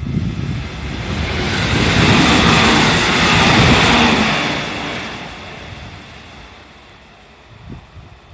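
JR Central 313 series electric train passing over a level crossing, its wheels clattering on the rails. It is loudest about two to four seconds in, then fades away, with a short knock near the end.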